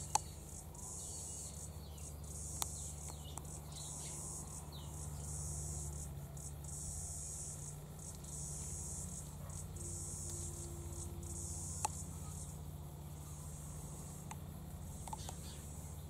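High, shrill insect chorus (crickets or cicadas) trilling in repeated bursts about a second long, with a few faint bird chirps early on.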